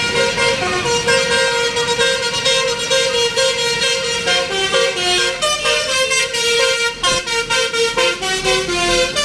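Truck's basuri telolet horn playing a tune of held notes that step up and down in pitch.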